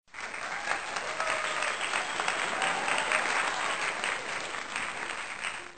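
Crowd applauding: dense clapping that starts suddenly, holds steady, then fades out near the end.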